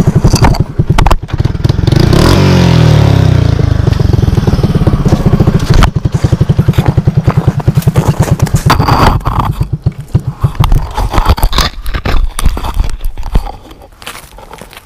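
Yamaha Tri-Moto three-wheeler's single-cylinder engine running hard, its pitch rising and falling about two seconds in. After about ten seconds the engine sound fades and close knocks and scrapes take over.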